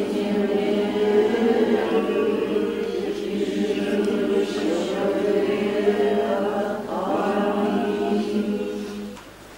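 A group of voices singing a chant in long held notes that slide between pitches, stopping shortly before the end.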